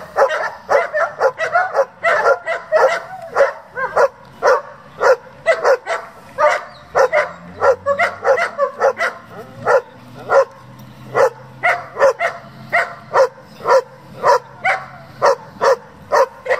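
German Shepherd barking hard and repeatedly, about two to three sharp barks a second, with no let-up: drive barking at a helper during bite work.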